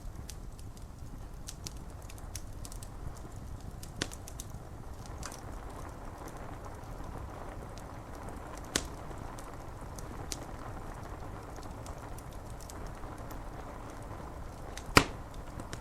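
Wood fire crackling, with scattered small pops, a few louder snaps and one sharp pop near the end, over a steady hiss of rain on window glass.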